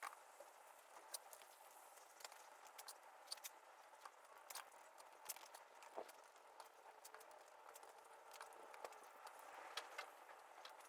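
Faint, irregular light clicks and taps over a quiet background hiss.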